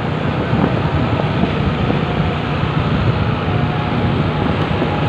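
Steady engine and road noise of a vehicle travelling along a road.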